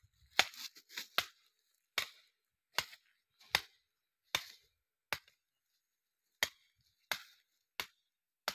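A series of short, sharp knocks or clicks, a little more than one a second, a few of them coming in quick pairs.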